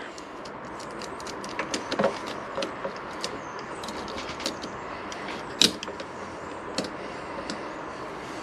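Small metallic clicks and taps as a nut is fitted by hand onto the bolt of a motorcycle exhaust can's hanger bracket, with one sharper click a little over halfway through.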